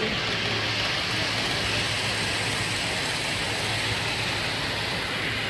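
A model Azuma express train running fast along the layout's track: a steady rushing hiss of wheels and motor, swelling a little as it passes close, over the hum of a busy hall.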